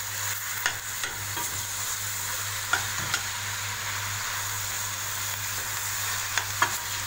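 Minced beef and onions sizzling in a stainless steel pot while being stirred with a metal spoon, with a few sharp clicks of the spoon against the pot.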